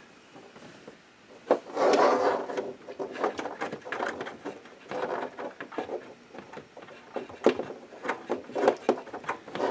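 Handling noise: rubbing and scraping with scattered knocks and clicks as hands work a power cable into the back of a 3D printer. A longer scraping rub comes about two seconds in.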